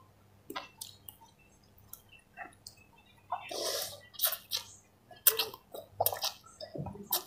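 Close-up eating sounds of instant noodles in broth: wet lip smacks and chewing, then several loud slurps of noodles from about three seconds in.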